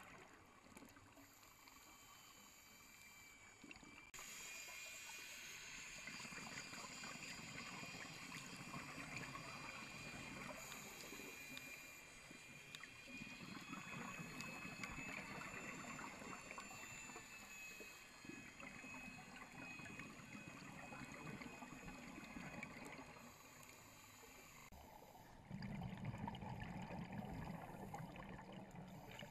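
Faint, muffled underwater ambience picked up by a GoPro in its waterproof housing while diving: a steady water hiss with fine crackling. A louder low rumble comes in near the end.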